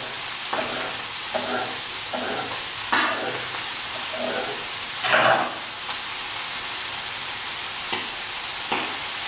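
Chicken livers, hearts and onions frying in olive oil on high heat make a steady sizzle. A few soft strokes of a knife slicing poached pear on a wooden cutting board come over it, the clearest about three and five seconds in.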